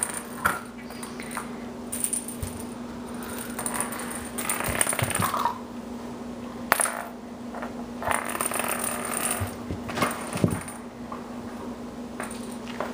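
A small jingle bell inside a cat-toy ball rattling and tinkling in several short bursts as a puppy mouths and pushes it along a hardwood floor, with a couple of sharp knocks of the toy or paws on the floor or wall.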